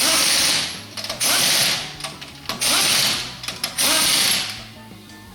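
Impact wrench running wheel lug nuts: four rattling bursts of about a second each, with short pauses between.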